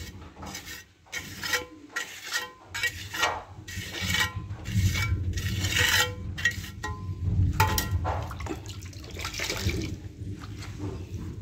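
Damp cloth wiping and rubbing grout haze off freshly grouted ceramic floor tiles, in repeated short wet strokes, with a low rumble underneath from about halfway through.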